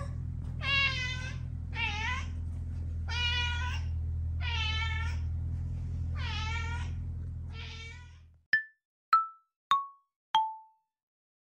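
A Highlander-type curl-eared cat, half Ragdoll and part Highland Lynx, meows over and over, about six meows over some eight seconds, with a steady low hum underneath. After the sound cuts off, four short chime notes ring out, each one lower than the last.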